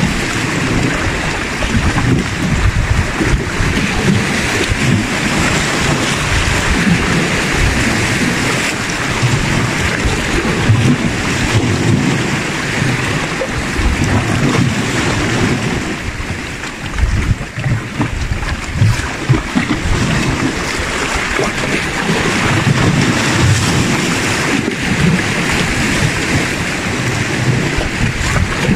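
Sea waves washing against shoreline rocks, with wind buffeting the microphone in gusts. The sound eases briefly about two thirds of the way through.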